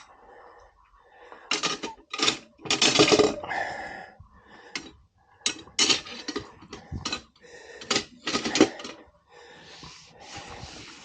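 Irregular clatter, clinks and scraping of metal tools and a motorcycle wheel being handled during tire and rim work, in a string of short bursts of varying length.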